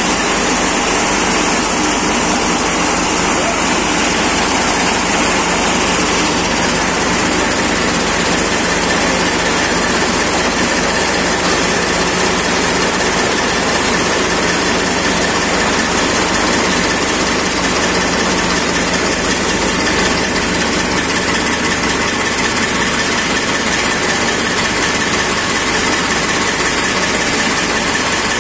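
A tractor-PTO-driven chaff cutter running steadily: the tractor engine, the belt drive and the spinning cutter make one loud, even machine noise.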